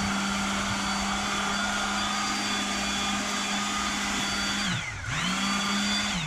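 Electric palm sander running steadily as it sands rust off a motorcycle brake rotor, with a high whine over the motor hum. About four and a half seconds in it winds down, then it starts up again half a second later and winds down once more near the end.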